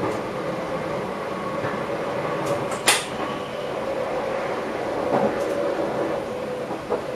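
Passenger train running, heard from inside the driver's cab: steady rolling noise with a constant hum. There is a sharp clack about three seconds in, and lighter knocks around five and seven seconds in.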